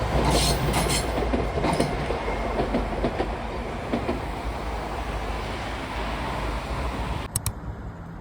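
A moving vehicle: a steady low rumble with rattling clicks that slowly fades and changes abruptly near the end.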